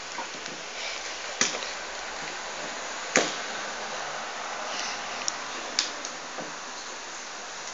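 Handling noise: a few sharp clicks and knocks over a steady hiss, the loudest about three seconds in.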